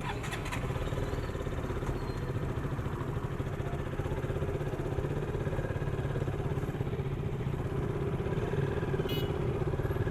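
Motorcycle engine running steadily while riding, picked up by an action camera's built-in microphone as a dense low rumble.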